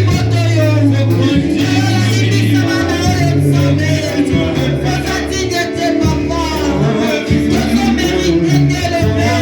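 Worship music: singing over a band, with a bass line of held low notes changing every second or so.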